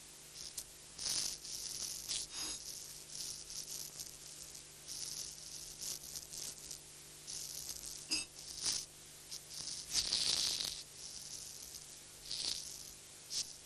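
Sand shifting and grinding in irregular hissing bursts as a figure of sand moves. A couple of short runs of rattling clicks come about two seconds in and again about eight seconds in.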